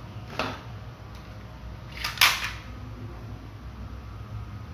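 A plastic toy revolver fires two shots: a softer one about half a second in, then a louder, sharper shot about two seconds in, each with a short tail.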